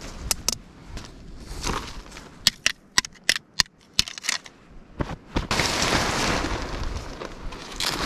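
Yellow plastic tent pegs clacking together as they are pulled from the sand and gathered in the hand, a series of sharp clicks, then nylon tent fabric rustling steadily as it is pulled about, starting a little past halfway.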